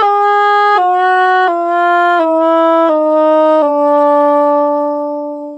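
"Womp, womp, womp" sad-trombone style sound effect: a brass-like horn playing a descending run of notes, stepping down in pitch about every 0.7 seconds, then holding a long low final note that fades away. It is the meme sound for failure or disappointment.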